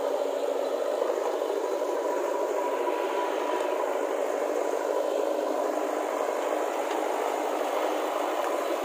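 Diesel engines of a JCB backhoe loader and a tractor running steadily at close range, a continuous mechanical rattle.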